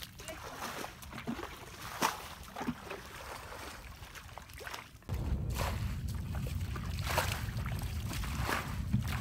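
A hoe chopping and scraping into mud under shallow water, with scattered splashes and sloshes. About five seconds in, a low wind rumble on the microphone starts suddenly and continues under the splashing.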